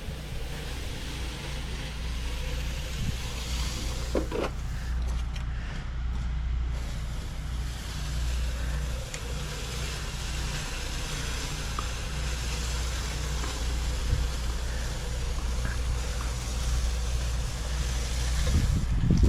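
Concrete mixer truck's diesel engine running steadily with a low, even drone.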